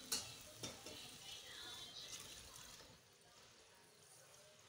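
Water poured from a steel bowl into an aluminium pressure cooker, faint, with a light click at the start and the pouring dying away about three seconds in.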